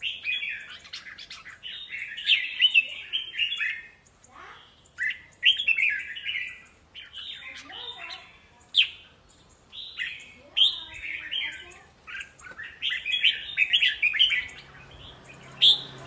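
Caged red-whiskered bulbuls singing against each other in a song duel: short, bright, quick warbling phrases come in bursts every second or two, with the birds answering one another.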